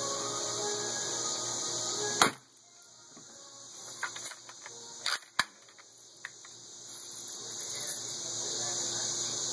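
A BB gun firing once, a sharp crack about two seconds in, followed by a few fainter clicks over the next few seconds. A steady high hiss runs underneath.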